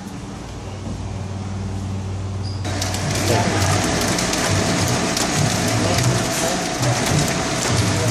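A low steady hum, then, about two and a half seconds in, a stainless-steel produce packing machine running: a steady whine over dense, rapid clicking and clattering.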